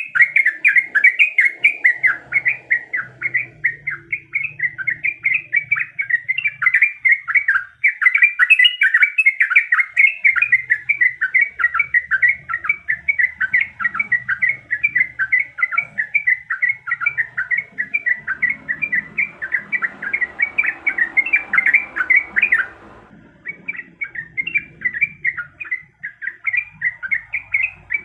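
Yellow-vented bulbul singing continuously: a rapid, unbroken chatter of short notes, several a second, with a brief pause about 23 seconds in.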